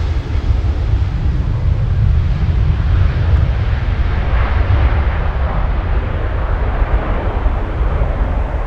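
Boeing 737 airliner's twin jet engines at takeoff power during its takeoff roll: a loud, steady, deep rumble.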